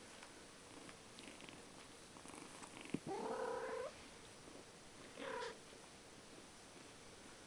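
Five-week-old kittens playing, with two cat mews: a long one about three seconds in, just after a sharp click, and a shorter one about five seconds in.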